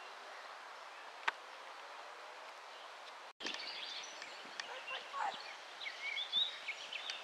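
Steady outdoor background hiss with a single sharp click about a second in; after a break about three seconds in, small birds chirp and call in short high notes over it.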